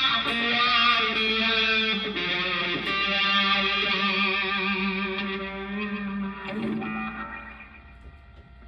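Electric guitar played through a Tank-G hybrid effects setup: sustained, lightly distorted lead notes with vibrato and a few note changes. The last note rings out and fades away near the end.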